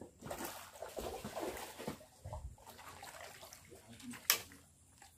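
Hooked fish splashing at the water's surface as it is drawn to the bank, with a single sharp knock about four seconds in.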